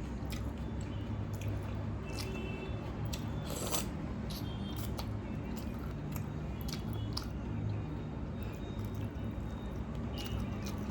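Close-up eating sounds of watery fermented rice (panta bhat) with chicken curry: wet squishing and chewing with scattered short crunches and clicks, over a steady low hum.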